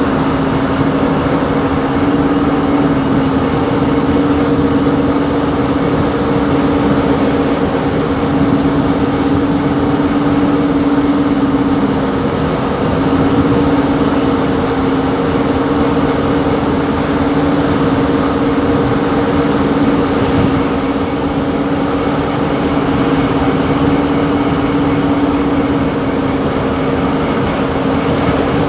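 A boat's engine running steadily under way, with a constant hum, over the rush of water along the hull.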